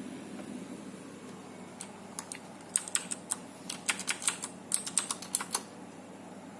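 Computer keyboard typing: a quick run of key clicks starting about two seconds in and stopping a little before the end. Underneath is the steady noise of a running Antec TP650 power supply, whose hissing is the fault being recorded.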